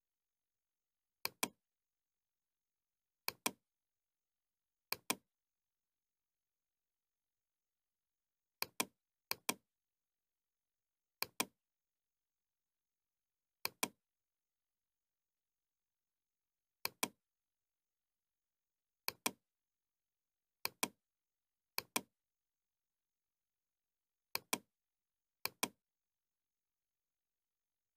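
Computer mouse clicks, each a quick pair of sharp ticks from the button pressing and releasing. About a dozen come at irregular intervals with silence between.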